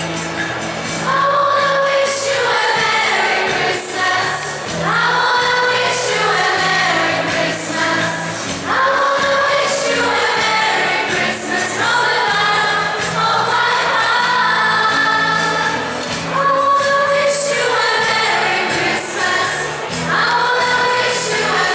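A choir singing a Polish Christmas carol (kolęda) in phrases of a second or two, several voices together over a steady low accompaniment.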